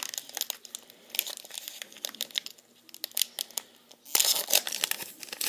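Crinkling and tearing of a trading-card pack wrapper as a pack is handled and opened. Scattered light crackles give way to a louder, dense burst of crinkling about four seconds in.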